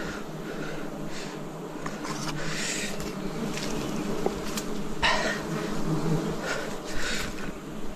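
A swarm of wild honeybees buzzing steadily around their hive, with intermittent bursts of hiss over the drone.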